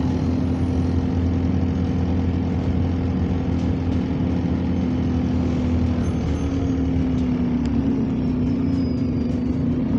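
Diesel engine of a single-decker bus, heard from inside the passenger saloon, running with a steady drone; its pitch rises a little about six seconds in.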